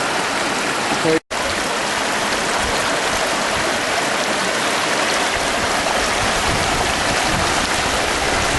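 Floodwater rushing steadily, with a short break about a second in.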